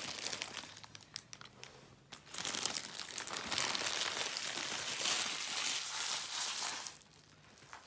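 Packaging being crumpled and handled: a few faint crackles at first, then about five seconds of continuous crinkling that stops near the end.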